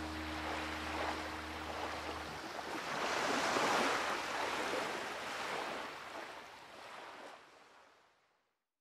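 Sea waves washing in. The surf swells to its loudest about three to four seconds in, then fades out near the end. A few low steady tones under it stop about two seconds in.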